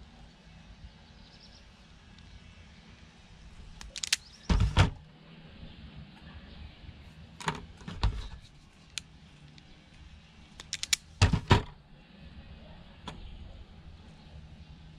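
Self-adjusting wire stripper clacking as its jaws clamp and pull the insulation off thin wire. Two loud double clacks come about four and eleven seconds in, with lighter clicks of the tool and wire being handled between them, over a faint steady hum.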